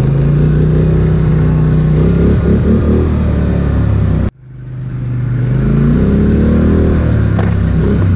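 Polaris Sportsman 850 XP ATV's twin-cylinder engine running under throttle on a trail, its pitch rising and falling with the throttle. About four seconds in the sound cuts out abruptly, then fades back in with the engine running again.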